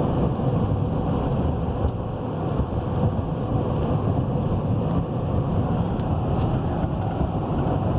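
Steady engine and road noise of a 2017 Chevy Silverado 3500 heavy-duty pickup driving along, heard from inside the cab, with a faint steady hum.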